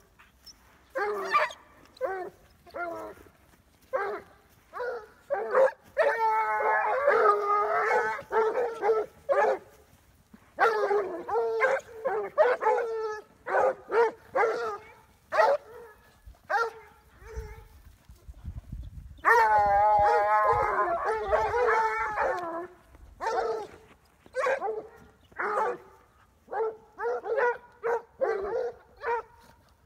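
A pack of hounds baying as they work a scent, noses down: many short yelping cries in quick succession, and twice a long, wavering held cry from several dogs at once.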